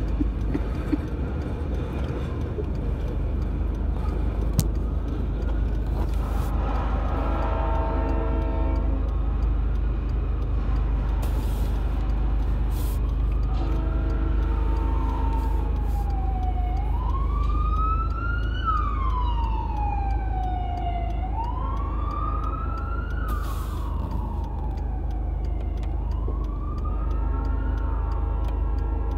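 Freight train tank cars rolling across a level crossing with a low steady rumble. From about halfway through, an emergency vehicle's siren wails, rising and falling in pitch again and again.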